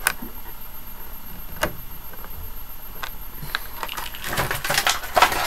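Handling noises from a boxed action figure in clear plastic packaging: a sharp knock as it is moved or set down, a second tap about a second and a half later, then a run of clicks and plastic rustles near the end as the next item is picked up.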